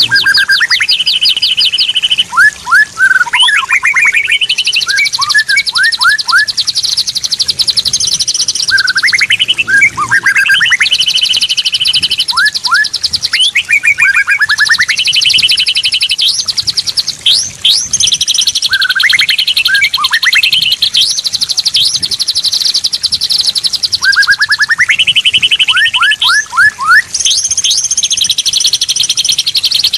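Straw-headed bulbul (cucak rawa) singing loudly and continuously, in phrases of rapid trills and quick sweeping whistles a few seconds long, with short breaks between them.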